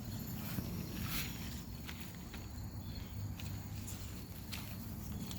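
Footsteps and a few light knocks over a steady low outdoor hum, with faint high insect chirring.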